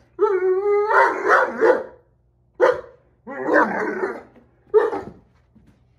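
Great Dane puppy play-barking. It opens with one long, pitched, whining bark of about a second, then gives several shorter rough barks with pauses between them.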